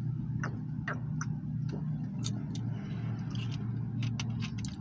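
Steady low hum inside a car's cabin, with scattered short clicks and gulps as someone drinks from a plastic soda bottle.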